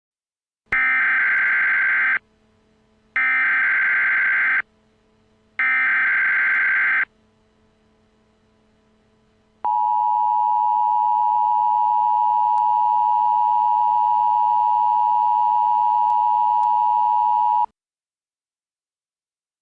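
Imitation Emergency Alert System header: three short bursts of data tones about a second apart, then after a pause a steady attention tone held for about eight seconds that cuts off sharply.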